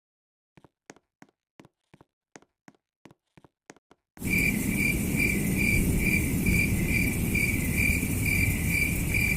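Faint, evenly spaced ticks for about the first four seconds. Then a cricket chirping in even pulses, about three a second, over a steady hiss, which cuts in suddenly about four seconds in.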